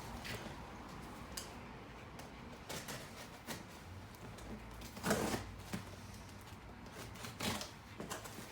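Scattered knocks and rustles of cardboard shipping boxes being handled, the loudest rustle about five seconds in.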